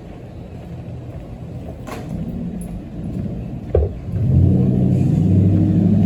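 City street traffic with a steady low rumble. About four seconds in, a motor vehicle's engine comes close and gets much louder, holding a low steady drone.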